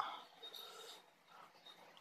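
Faint eating sounds: a short mouth smack right at the start, then a little soft chewing, fading to near silence after about a second.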